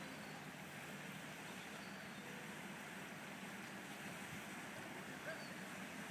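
Steady, fairly quiet harbour noise with the low hum of a boat engine running at a distance, under a haze of wind and water.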